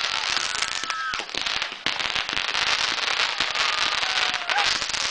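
A 500-gram consumer fireworks cake firing, with dense crackling and popping from its shells. A steady whistle runs for about the first second, and a short falling whistle sounds near the end.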